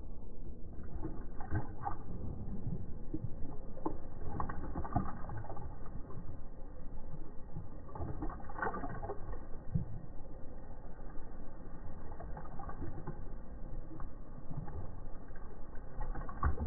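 A Belgian Tervuren dog lapping water from a glass bowl, slowed down: uneven, drawn-out sloshing and splashing strokes with little treble.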